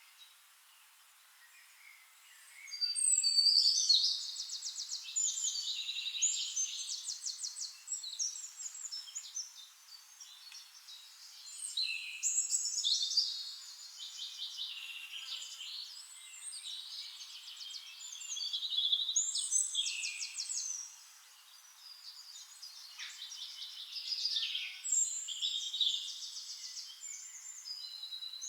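Forest songbirds singing: bright, high phrases of quick trills and chirps come every few seconds, the loudest about three seconds in.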